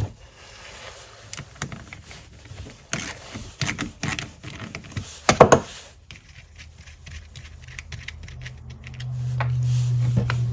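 Small irregular clicks, rattles and knocks of a battery mini chainsaw and hand tools being handled while the saw is taken apart to clear twigs from its guard, with one louder knock about five seconds in. A low steady hum comes in near the end.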